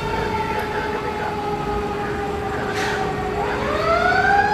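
Fire engine sounding a dual siren, an electronic wail together with a mechanical Q siren. A steady lower siren tone holds while a higher one falls slowly, then rises again near the end, with a short hiss about three seconds in.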